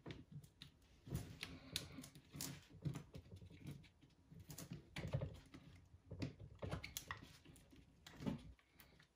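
Fingers seating a small cable connector on a MacBook Pro logic board: irregular small plastic clicks and taps with soft handling rubs.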